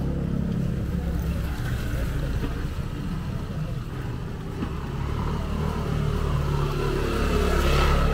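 A vehicle engine running with a steady low rumble, growing louder and rising in pitch toward the end as it comes closer.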